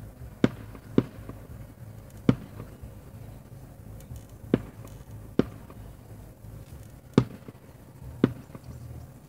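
Aerial firework shells bursting: seven sharp bangs at uneven intervals.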